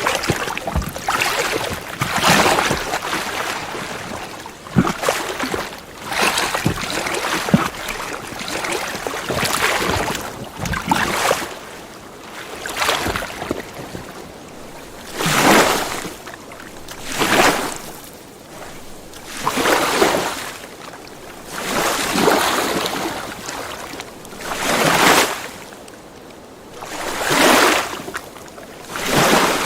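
Small lake waves lapping at the shore, each wave washing in and falling back about every two seconds, with a few sharp slaps of water in the first several seconds.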